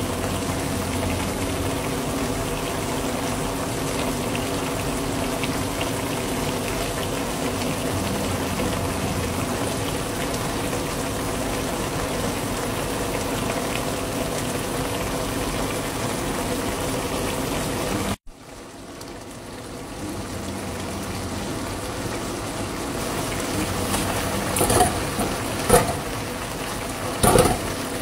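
Pork and bottle gourd broth simmering in a wok, bubbling steadily. The sound cuts out suddenly about two-thirds of the way in and builds back up, and a few short clatters come near the end as bok choy goes into the pan.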